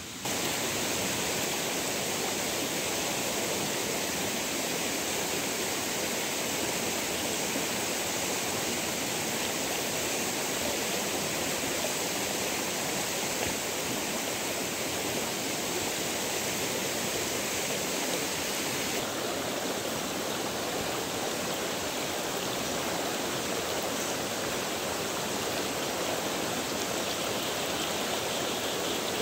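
Stream water rushing steadily, with no break and no distinct splashes.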